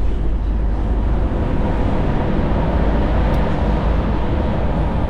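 Steady rumble of a moving truck: engine and road noise, even and unbroken, heaviest in the low end.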